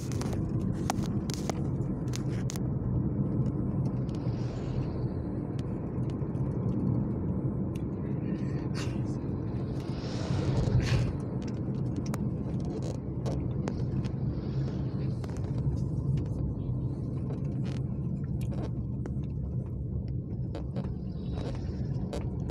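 Steady low rumble of road and engine noise, heard from inside a moving vehicle travelling along a highway.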